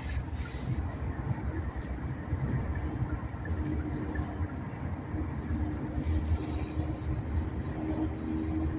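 Steady road and engine rumble of a car driving at highway speed, heard from inside the cabin, with a faint steady hum. Two brief hisses, about half a second in and about six seconds in.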